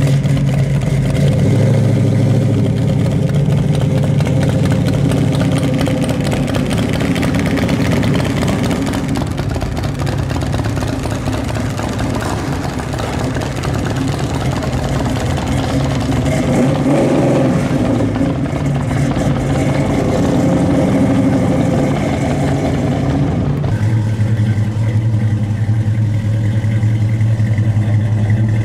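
Chevrolet Chevelle SS 396's V8 exhaust running, rising and falling in pitch as the car pulls away and drives off. About 24 seconds in, the sound changes abruptly to another car's engine idling steadily.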